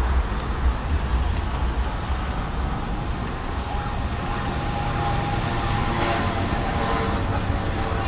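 Steady street noise: a low rumble of road traffic, heaviest in the first couple of seconds.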